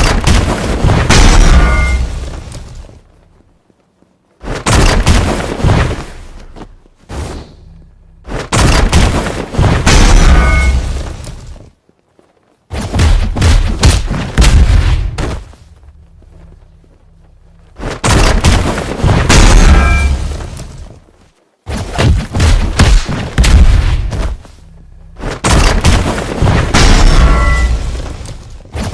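A loud metal bang sound effect, repeated about seven times, once every four seconds or so. Each bang is a heavy clattering crash with a ringing metallic tone that dies away over a couple of seconds.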